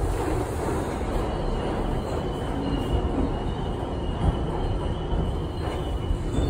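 R62A subway car running, a steady rumble of wheels on rail with a faint whine about two to four seconds in.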